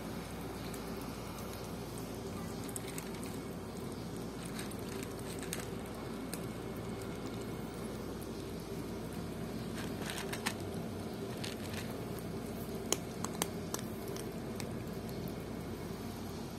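Two cats eating sardines in tomato sauce from a tray: wet chewing, smacking and licking with scattered small clicks. A few sharper clicks come about ten and thirteen seconds in, over a steady low hum.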